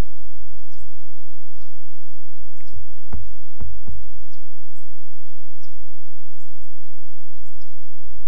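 Repeated short, high chip notes from small birds in winter woodland, over a steady low rumble. A few brief low cracks or thuds come about three to four seconds in.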